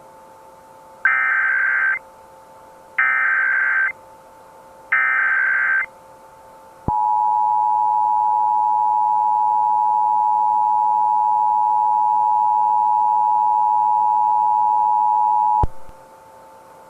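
Emergency Alert System tones: three one-second bursts of warbling digital header data, each followed by a pause, then the EAS two-tone attention signal, a steady harsh dual tone held for about nine seconds that cuts off abruptly. They announce the start of an emergency alert broadcast.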